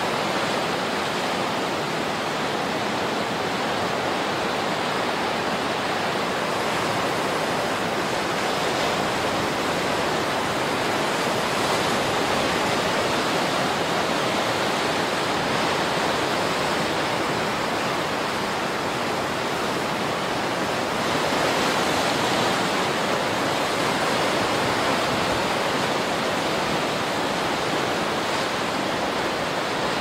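Ocean surf breaking and churning over a rocky shore: a continuous rush of water that swells slightly as waves come in.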